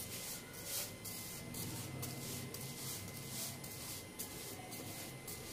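Faint soft rubbing and swishing, repeated every fraction of a second, as a slotted spatula presses and pushes a pita bread across a nonstick frying pan. A low steady hum runs underneath.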